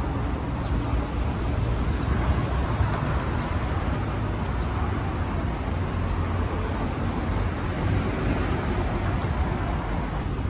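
Steady road traffic noise from passing cars, with a few light clicks.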